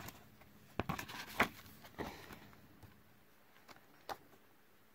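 Pages of an album photobook and photocards being handled and flipped: a handful of short, soft paper taps and rustles with quiet gaps between them.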